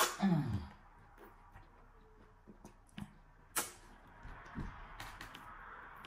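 Close-up eating sounds: a short hum falling in pitch at the start, then wet mouth clicks and smacks from eating okra soup and fufu by hand, the loudest about three and a half seconds in.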